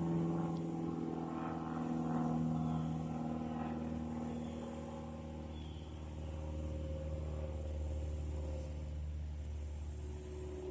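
A motor vehicle engine running steadily with a low hum that holds pitch.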